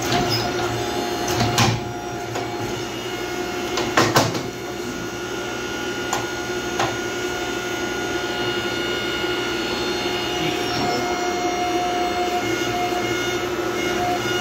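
Hydraulic forging press running, its pump motor giving a steady hum, with sharp metal clanks about a second and a half and four seconds in as hot steel is punched for an axe eye.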